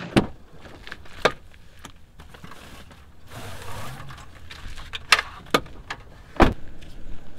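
A handful of sharp knocks and clacks, the loudest about six and a half seconds in, as a folding lounger with a metal frame is handled and lifted out of a pickup truck's back seat.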